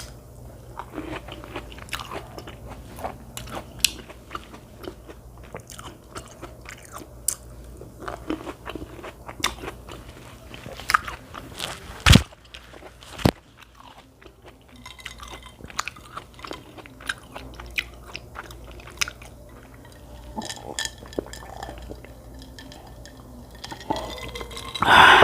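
Close-miked eating sounds: crunching, biting and chewing in irregular small clicks and smacks, with one loud sharp knock about halfway through.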